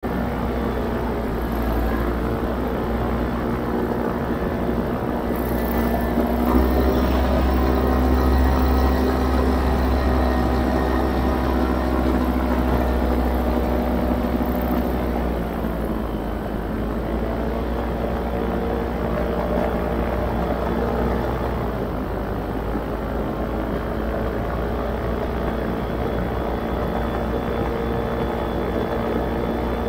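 Paramotor engine and propeller running steadily in flight, its pitch easing down slightly about halfway through.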